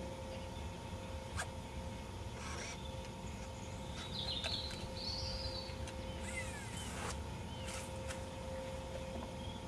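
Outdoor ambience with birds chirping a few times, loudest about halfway through, over a low rumble of wind, with a few faint clicks.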